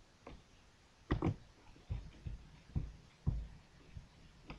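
Scattered soft clicks and thumps of a computer mouse and desk handling picked up by a close microphone, ending with a sharper click as the screen recording is stopped and the sound cuts off.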